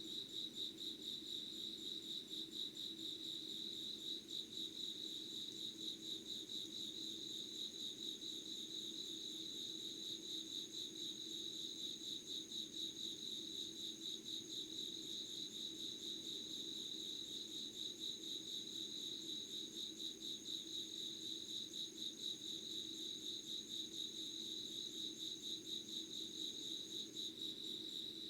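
A chorus of crickets chirping in a rapid, even pulsing. A second insect's thin, steady high trill joins about four seconds in and stops shortly before the end.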